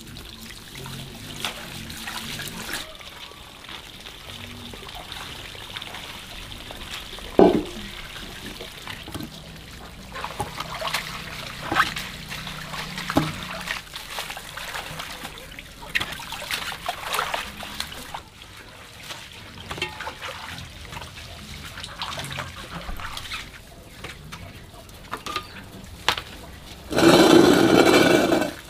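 Water from an outdoor pipe spout pouring into a cooking pot of peeled bamboo shoots, loudest as a rush near the end. Before that, scattered knocks and rubbing of bamboo shoots being handled, over a faint trickle of water.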